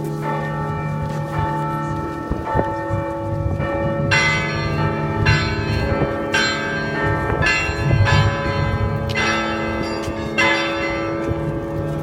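Russian Orthodox church bells rung by bell-ringers: lower bells ring on steadily, and from about four seconds in a brighter chord of smaller bells is struck roughly once a second over them.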